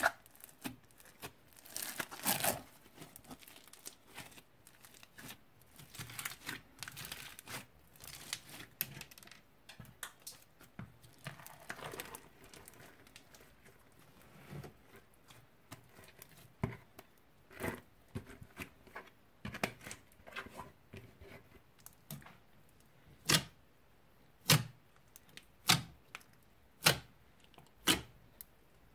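Old slime being mixed and squished by hand, with uneven sticky handling noises. Near the end come sharp pops about once a second as it is pressed and folded.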